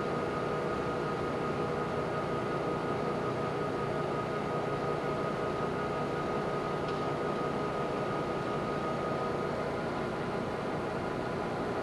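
Poreba TPK-90Ax2M hollow-spindle engine lathe running, its gearing driving the carriage along the bed on longitudinal power feed: an even mechanical hum with a few steady tones over it. A faint click about seven seconds in.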